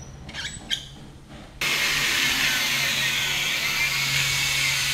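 A handheld angle grinder cutting through a metal flat bar: after a few light knocks from the bar being handled, the grinder bites into the metal about a second and a half in and runs on steadily with a harsh, high grinding whine.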